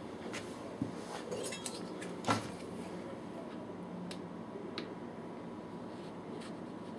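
A few light clicks and knocks of a table knife against an opened metal can of cheese as the cheese is cut, with one louder knock a little over two seconds in.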